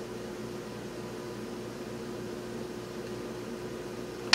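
Steady background hum of a small room with a faint constant tone, as from a fan or running appliance; one sharp click right at the end.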